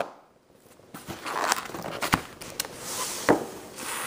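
Cardboard packaging and paper being handled on a table: rustling and scraping with a few sharp knocks, starting after a brief quiet second.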